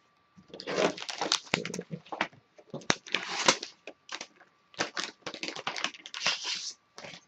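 Craft supplies being handled and searched through: irregular crinkling and rustling with sharp clicks and knocks, in uneven bursts with short pauses.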